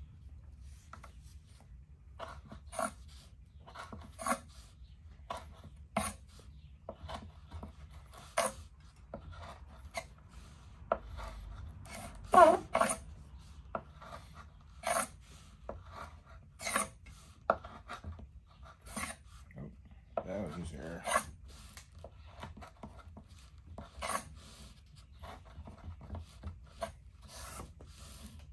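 Civivi Badlands Vagabond folding knife slicing through paracord: a series of short rasping strokes, one every second or two, with a louder stroke about halfway through and a longer rustle of the cord a little later.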